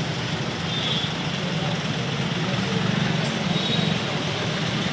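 Road vehicle engines running steadily, with street traffic noise.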